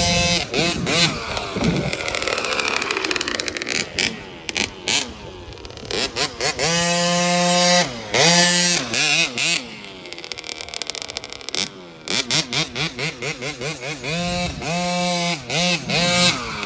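KTM 50 youth dirt bike's small two-stroke single-cylinder engine revving up and down over and over as it is ridden, its pitch repeatedly rising and falling, with a few short stretches held steady at high revs.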